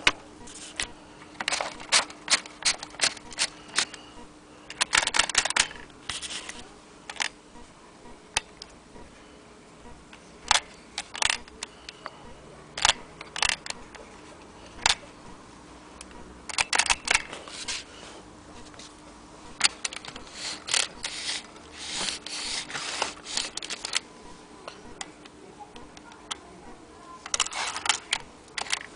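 Aluminium Blick Featherweight typewriter being typed on: runs of quick, sharp key strikes and mechanism clacks, broken by pauses of a few seconds.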